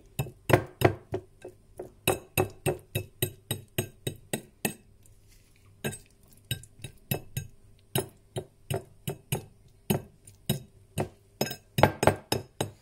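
A metal fork tapping and clinking against a ceramic plate again and again, about three strikes a second with a short break midway, as mayonnaise is spread over a layer of chopped onion.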